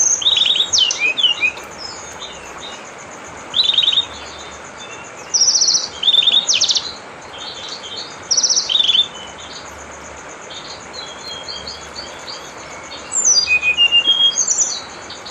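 A songbird singing bouts of quick, sweeping chirpy phrases, five or six bouts with short gaps between. A steady high-pitched buzz runs behind it.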